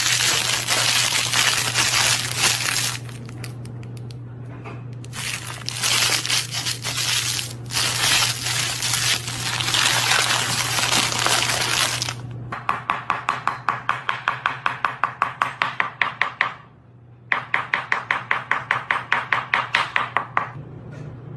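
Plastic snack bag being crinkled by hand, with a short lull about three seconds in. From about twelve seconds it gives way to a quick, regular rattling pulse, about five a second, in two runs with a brief break between.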